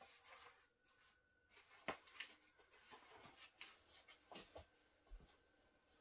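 Faint rustling with a few soft taps and clicks, the sharpest about two seconds in.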